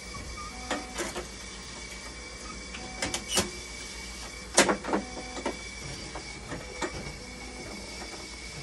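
Hemodialysis machine running with a steady hum, faint steady tones and a short repeating beep-like pattern. Sharp clicks and knocks of plastic connectors and tubing being handled on the machine come throughout, the loudest cluster about four and a half seconds in.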